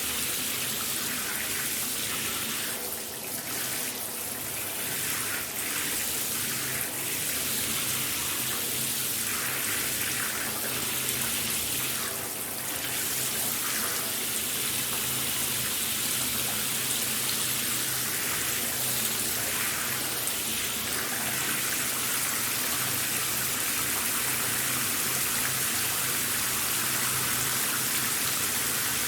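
Shower spray running steadily, water hissing and spattering, with a few brief shifts in the splashing in the first half.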